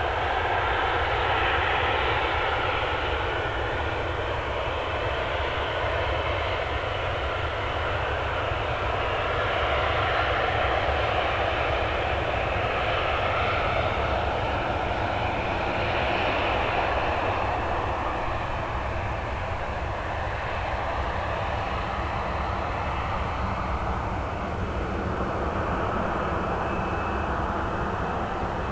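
Jet engines of a Boeing 737-800 airliner running: a steady rushing jet noise with whining tones that drift slowly up and down in pitch.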